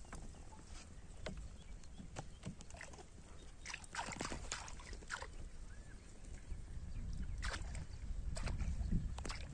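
Small splashes and sloshing of pond water as a hand and fishing line work the surface beside a wooden boat, in scattered short bursts. A low rumble builds in the second half.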